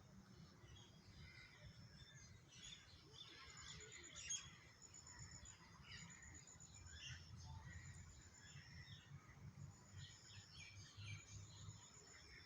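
Several small birds chirping and twittering, with a high, rapid trill of evenly spaced notes recurring several times, over a faint low rumble.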